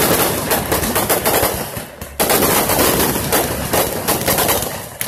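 Aerial fireworks crackling and popping in rapid bursts of sharp reports. The crackle eases briefly about two seconds in, resumes suddenly, then tails off near the end.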